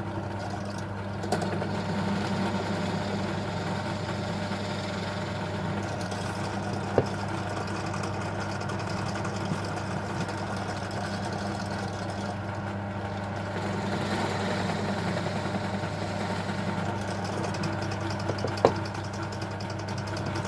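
Drill press motor running steadily as a 13 mm bit bores shallow holes in plywood, with two sharp knocks, one about a third of the way in and one near the end.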